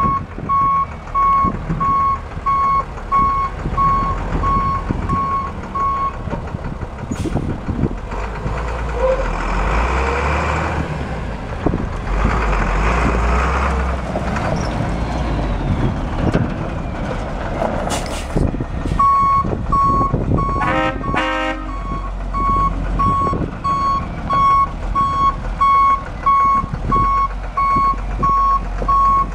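1998 International 4700 water truck with its DT466 diesel engine running as it moves around, its reversing alarm beeping steadily for about the first six seconds and again over the last ten. In between, the engine and tyres are heard on their own. About twenty seconds in there is a brief burst of a different, lower beeping.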